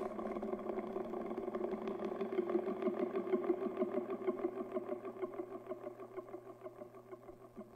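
Experimental electronic music played live: a dense droning texture of several held tones with a fast, even flutter running through it, growing fainter toward the end.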